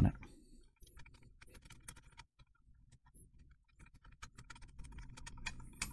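Faint small metallic clicks and scrapes of the nuts on a Bluetooth amplifier's control shafts being turned off by finger against its metal front plate, scattered and growing busier near the end.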